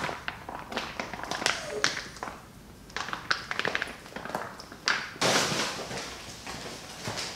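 Handling the cut-open plastic wrapper of a pack of raw baby back ribs: scattered taps, knocks and crinkles, with a few footsteps on a tile floor. About five seconds in, a loud rustling rush lasts about a second and fades.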